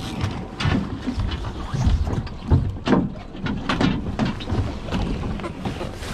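Wind rumbling on the microphone aboard a small boat, with irregular knocks, bumps and rustling as people move about the fiberglass deck and the camera is handled.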